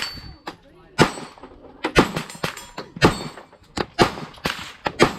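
Glock 43X 9 mm pistol with a ported barrel being fired in a steady string, about one shot a second, each a sharp crack with a short echo.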